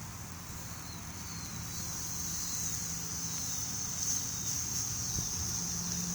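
Insects buzzing steadily in a high, even drone that grows a little louder, over a low steady hum.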